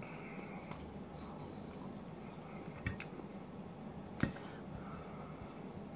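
Metal fork clinking and scraping against a plate of fries and gravy while eating. The two sharpest clinks come about three and four seconds in, with a few softer taps between them.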